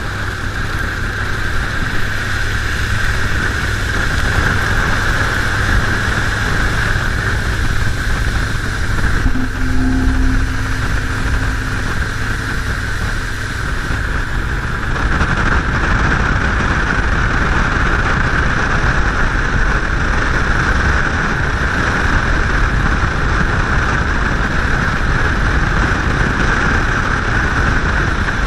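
Triton TR186 bass boat running at speed: a steady rush of water spraying along the hull and wind past the side-mounted camera, with the outboard motor's drone underneath.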